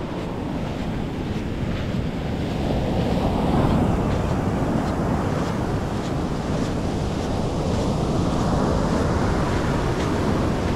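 Mediterranean surf washing onto the beach in a continuous rush, swelling as waves break about four seconds in and again near the end, with wind buffeting the microphone.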